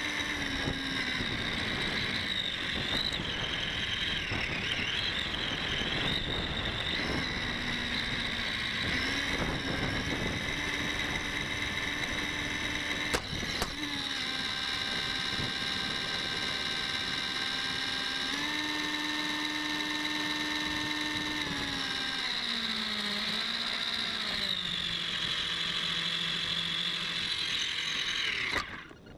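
Electric RC car's motor and drivetrain whining, heard from the car itself, with the pitch shifting as its speed changes. Tyre noise on gravel runs under the whine in the first half. A sharp knock about thirteen seconds in is followed by a steadier whine that steps up and down, and the sound cuts off suddenly near the end.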